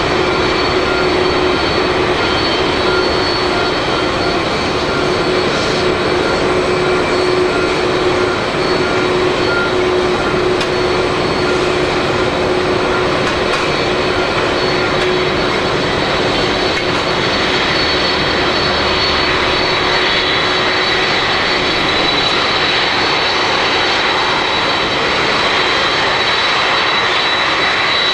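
Boeing 747-400D jet airliner's four turbofan engines running loud and steady, a roar with high whining tones that grows stronger in the second half.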